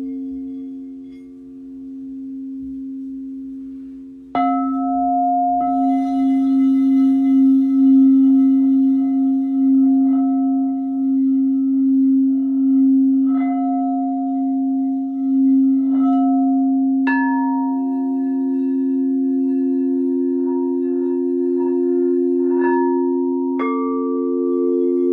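Singing bowls ringing: a steady low bowl tone sounds throughout, and other bowls are struck about eight times, each strike starting a new pitch that hangs on and slowly wavers in loudness.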